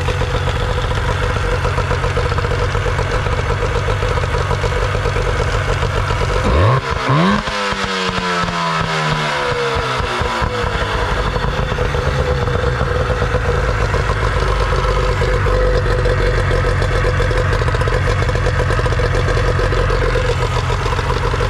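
Nissan 18 hp two-stroke outboard motor running steadily on its cleaned carburetor. About six seconds in it is revved up once, then drops back over a few seconds to its even run.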